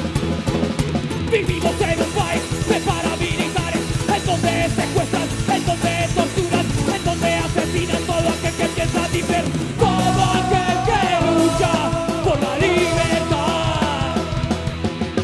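Punk band playing: guitars, bass and drums with yelled vocals. About two-thirds of the way through the music gets louder and several voices sing together in long held notes.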